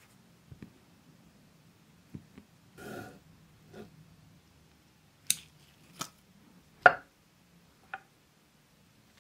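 Small hand tools and objects being handled and set down on a wooden workbench. There is a short scraping rustle about three seconds in, then four sharp, separate knocks and clicks in the second half, the third the loudest.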